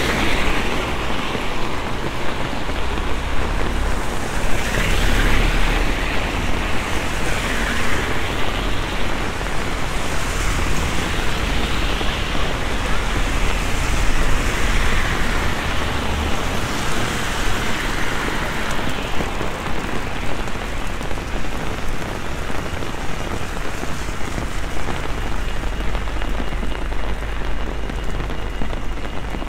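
Heavy rain falling steadily on a city street. Car tyres swish through the standing water as traffic passes every few seconds.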